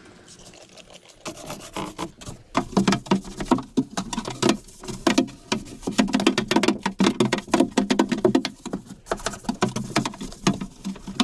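A brush scrubbing a boat's hull in quick, uneven strokes, starting about a second in.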